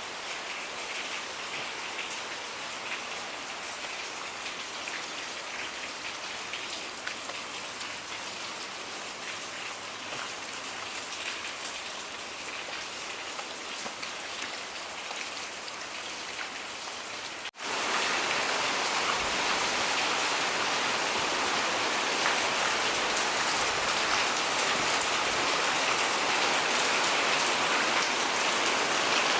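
Steady rain falling. A little past halfway it cuts abruptly to a louder, heavier rain.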